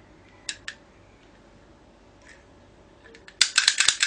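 Two light clicks, then about three and a half seconds in a mechanical lock pick gun starts firing: a rapid run of sharp metallic snaps as its needle strikes the pins of a pin-tumbler lock to pick it open.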